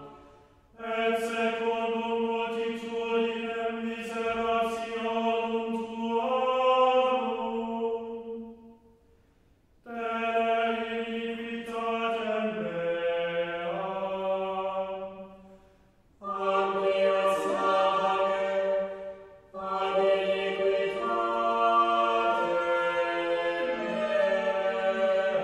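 Background music of slow, chant-like sustained vocal chords, held for several seconds at a time in four phrases separated by brief pauses.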